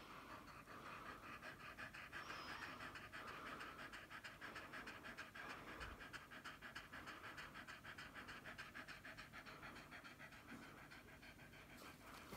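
Staffordshire bull terrier panting rapidly and evenly while in labour, delivering a puppy. The panting is faint.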